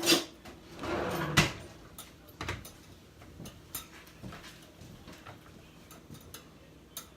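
Beaters being handled and clicked into an electric hand mixer: two sharper knocks about a second apart near the start, with rustling between them, then fainter scattered clicks.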